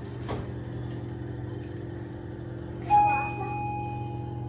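A single bell-like tone struck about three seconds in, ringing on and slowly fading, over a steady low hum.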